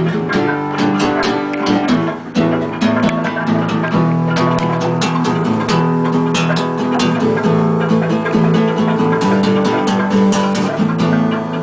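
Instrumental music led by guitar, with bass under it and many sharp strummed or struck strokes.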